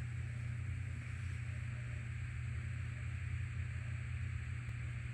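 Steady low hum with an even hiss over it, and one faint tick near the end; no sneeze is heard.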